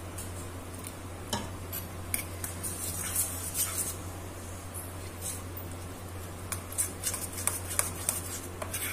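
Steel spoon stirring flour and water into a paste in a small stainless-steel bowl, clinking and scraping against the bowl. The clinks come quicker near the end.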